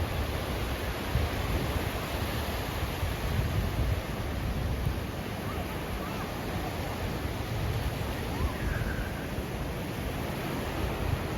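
Sea surf washing onto the beach, a steady rush of noise, with wind rumbling on the microphone.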